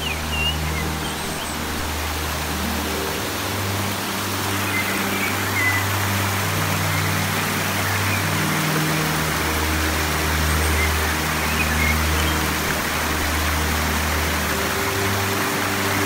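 Creek water rushing and splashing over boulders in a steady rush. Background music of slow, held low chords that change every few seconds plays over it.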